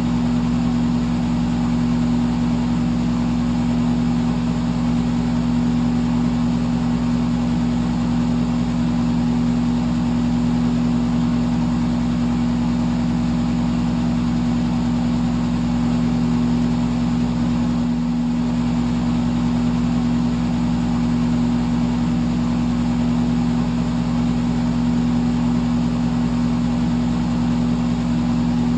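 Electric fan running steadily: a constant motor hum with a few steady low tones under an even rush of air.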